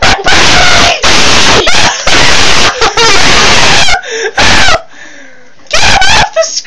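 A person screaming in a string of loud, distorted bursts of about a second each, breaking off around four seconds in and starting again shortly before the end.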